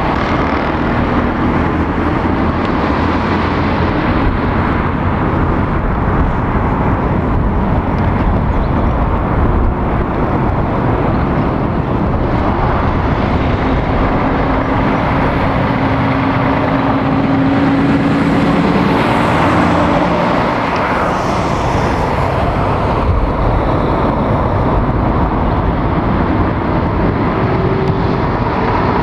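Road traffic going round a roundabout: cars and diesel articulated lorries, engines running with continuous tyre and road noise. A lorry's engine note stands out for several seconds about halfway through.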